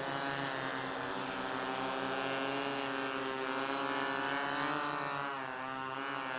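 Quadcopter's electric motors and propellers buzzing in flight, the pitch wavering up and down as the motors speed up and slow down, over a steady high whine.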